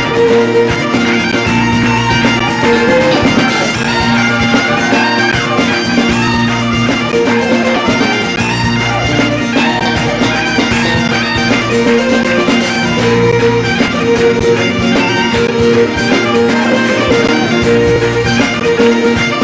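Scottish traditional band playing a set of jigs: a bagpipe melody over steady drones, with fiddle.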